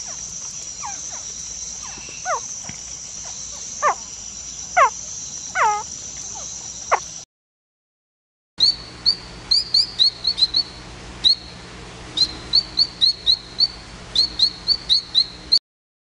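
Frog calls from two recordings. First, several loud whistled notes, each falling steeply in pitch, over a steady high insect drone. After a brief silence, a fast, irregular series of short high chirps, about three a second.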